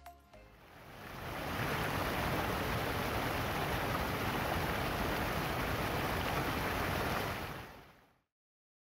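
Small waterfall splashing over rocks: a steady rush of water that fades in over the first second or so and fades out about eight seconds in.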